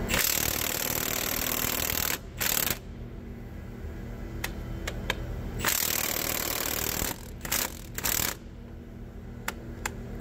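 Milwaukee 3/4-inch cordless impact wrench hammering in several bursts. The first lasts about two seconds, then come shorter ones with pauses and clicks between. It is undoing the head bolts that hold down the rocker pedestals on a Cat 3406 diesel engine.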